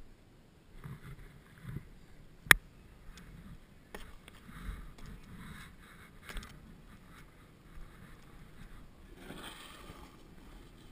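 Snowboard scraping and sliding over packed snow in uneven spells, with one sharp loud knock about two and a half seconds in and a few smaller knocks after it.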